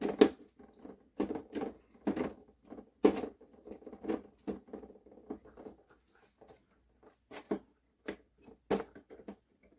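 Irregular small clicks, knocks and scrapes of a stock AMD Wraith Stealth CPU cooler being handled and worked loose from the processor once its thermal paste has let go. The knocks come thick at first and thin out after about six seconds.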